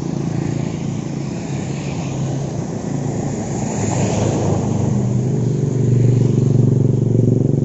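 A vehicle engine running with a steady low hum, growing louder over the last few seconds.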